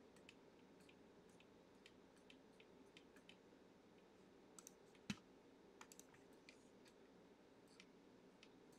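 Near silence: room tone with faint, scattered clicks, the sharpest about five seconds in.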